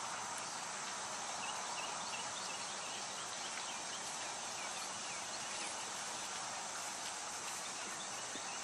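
Water from a small pump splashing steadily into a clear flood-and-drain grow bed, with faint gurgles from the bell siphon as it fills and drains, mostly in the first half.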